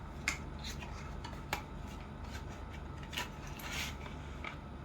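A small product box being opened and handled by hand: a few light clicks and a brief rustle of packaging.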